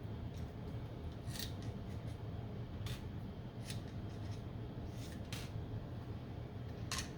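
Light, sharp clicks and taps, about six scattered through a few seconds, from handling 74LS138 DIP logic chips and bending their metal pins in to fit a socket, over a steady low hum.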